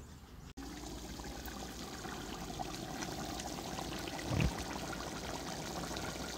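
Thick goulash simmering in a kettle cauldron: a steady bubbling hiss with many small pops. It starts abruptly about half a second in, and there is a short low thump about four seconds in.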